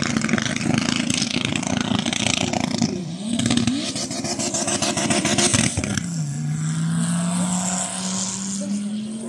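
Drag-race car engine revving at the start area, with a sharp drop and recovery in revs about three seconds in, then settling to a lower, steady drone that slowly climbs in pitch.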